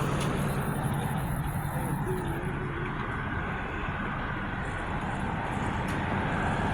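Steady motor-vehicle noise with a low rumble, like street traffic.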